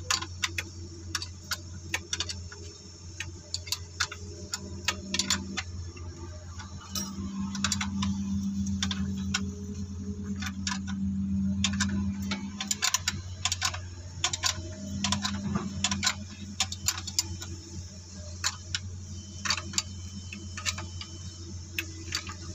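Ratchet wrench clicking in short, irregular runs as the alternator mounting bolts are turned, over a steady low hum.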